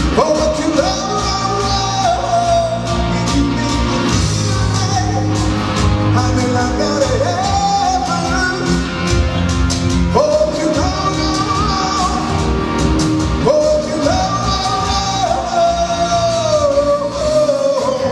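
A live rock band playing, with a man singing lead over electric guitar, bass guitar and keyboards and a steady beat.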